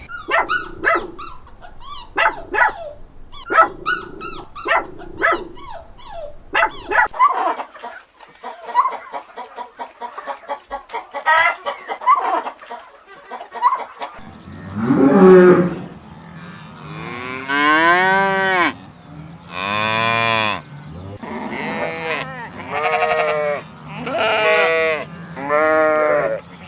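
A run of farm animal calls: many short, sharp calls in quick succession, then softer repeated calls, then from about halfway long calls that rise and fall in pitch, one roughly every two seconds.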